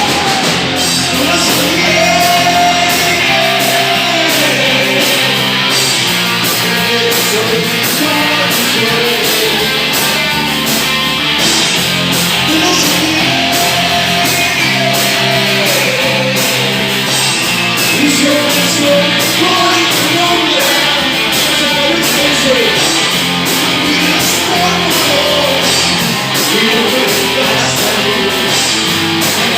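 Rock band playing live, a singer over the full band.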